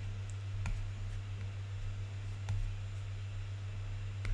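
Steady low electrical hum, with three faint sharp clicks spaced about two seconds apart: stylus taps on a tablet screen while handwriting is erased and rewritten.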